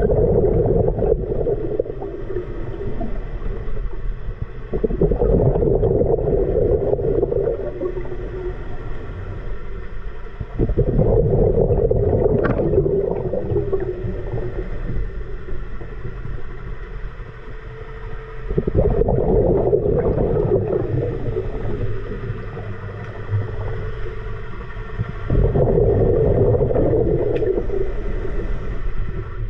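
Scuba diver's exhaled bubbles from the regulator bubbling and rumbling past the underwater camera in regular bursts, one per breath, about every six seconds, with quieter inhalation gaps between.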